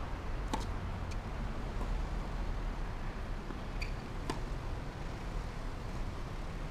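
Four short, sharp pocks of a tennis ball against a racket and the hard court, two of them close together near the middle, over a steady low outdoor rumble.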